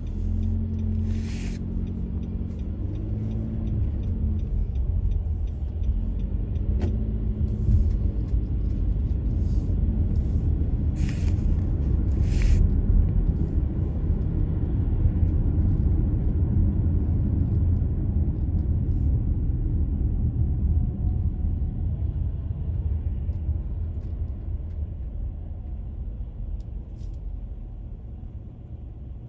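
Car driving on a wet road: a steady low rumble of engine and tyres, building as it gets up to speed and easing off near the end as it slows to a stop. A few short, sharp ticks break in briefly.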